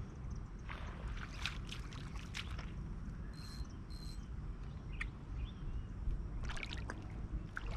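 Outdoor river ambience: shallow water trickling over rocks under a steady low wind rumble on the microphone, with a few light clicks and two brief high chirps midway.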